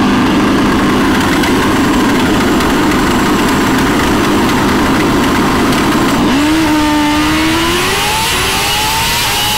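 Turbocharged Suzuki GSX-R1000 drag bike running flat out on a pass down the drag strip, heard from onboard. About six seconds in, the sound gives way to a single clear engine tone that climbs slowly.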